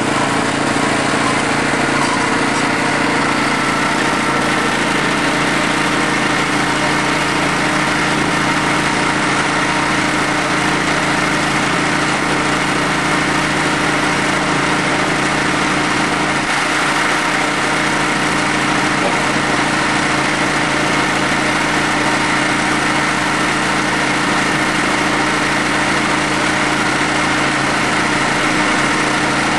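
Engine of a Timber King 1200 portable band sawmill running steadily at an even pitch.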